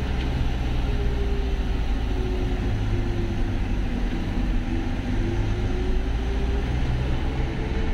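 Engine and road noise heard from inside a moving campervan bus: a steady low rumble, with a faint whine that drops in pitch and then climbs again as the engine speed changes.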